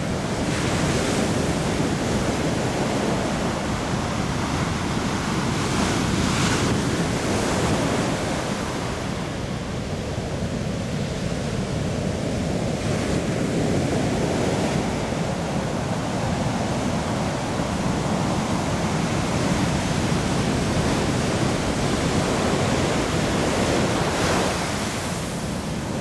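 Ocean surf: waves breaking and washing up a beach in a continuous rushing noise that swells with each breaking wave, loudest near the start, about six seconds in, and near the end.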